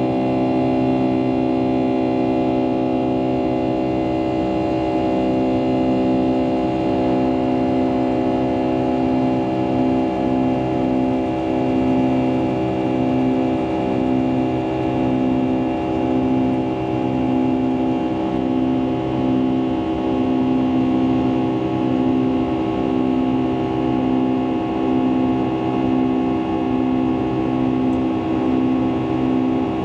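Boeing 757-200's Pratt & Whitney PW2037 turbofan engines running steadily, heard inside the passenger cabin: a drone of several steady tones over a rushing noise, with one low tone pulsing about once a second.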